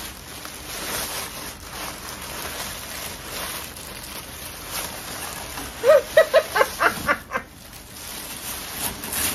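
White honeycomb packing paper rustling and crinkling as it is pulled and unwound by hand from a wrapped plate, a continuous run of small crackles. About six seconds in, a short burst of a woman's voice rises over it.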